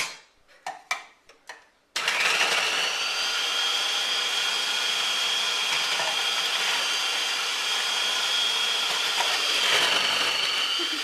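A few short knocks, then about two seconds in an electric food processor's motor starts abruptly and runs steadily with a high whine, grating boiled potatoes.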